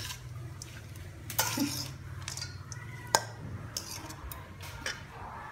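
Utensils clinking and knocking against dishes during food preparation: a few separate sharp clinks, the loudest about three seconds in.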